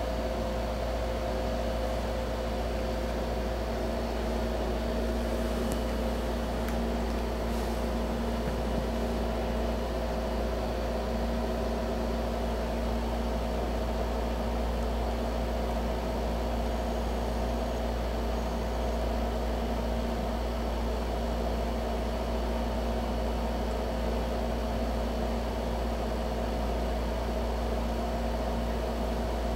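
Steady mechanical hum with an even hiss, unchanging throughout.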